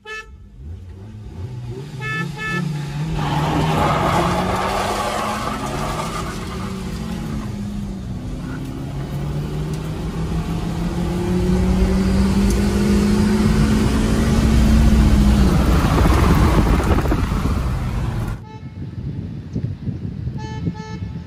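Three short car-horn toots as the start signal, then the Maruti Baleno's 1.2-litre petrol engine heard from inside the cabin, revving hard as the car launches with wheelspin on loose gravel and accelerates through the gears, its pitch climbing and dropping at each shift. Near the end the engine sound cuts off suddenly and is followed by a few more short horn toots.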